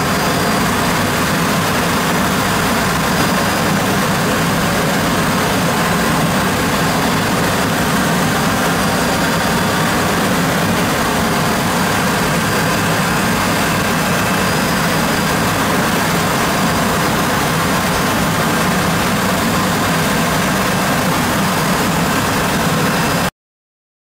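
Hwacheon Hi-M G1 vertical machining center rough-milling graphite with a 10 mm radius end mill, its spindle at 8,000 rpm: a steady, even cutting hiss with a faint whine over it. It cuts off abruptly near the end.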